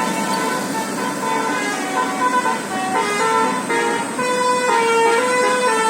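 Basuri musical air horn on a bus playing a "telolet" tune: held horn notes that step up and down in pitch one after another, clearer and more separate from about three seconds in.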